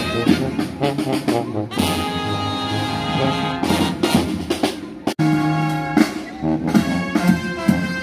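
Street brass band playing upbeat jazz: trumpets and trombones over a drum kit. The sound drops out sharply for a moment about five seconds in, then the band carries on.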